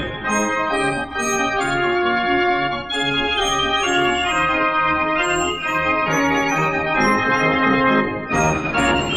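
The Great Gavioli, a Dutch barrel organ (street organ), playing a tune from an LP recording: held melody notes over a steady, regularly pulsing bass and accompaniment.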